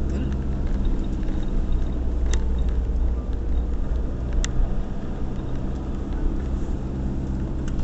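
Inside a moving car: steady low engine and road rumble with tyre noise on a wet road, and two brief sharp clicks about two and four and a half seconds in.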